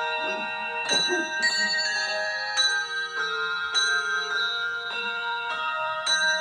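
Tuned bells playing a slow melody: each note is struck and left to ring, so several tones overlap and sustain, with a new strike roughly every half second to a second.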